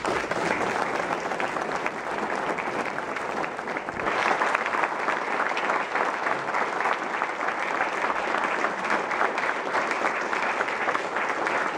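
Audience applauding: dense, steady clapping from many people that starts suddenly and grows louder about four seconds in.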